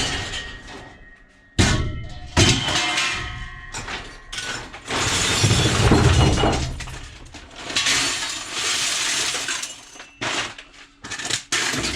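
Loose scrap metal clattering and crashing as pieces are tossed onto a pile, several separate crashes with some ringing, and a longer run of clatter about halfway through.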